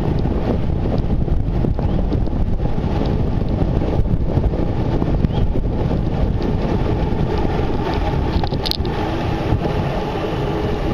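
Steady, heavy wind rumble buffeting the microphone, with one short sharp click nearly nine seconds in.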